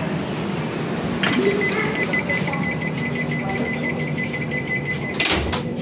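Rapid electronic beeping at a single high pitch for about four seconds, starting just after a click and stopping with a few clicks near the end, over a steady background rumble.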